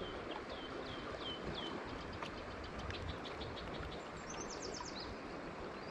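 A small songbird chirping: a string of short, falling chirps, then quicker ticking notes and a brief fast high trill near the end, over the steady rush of river water.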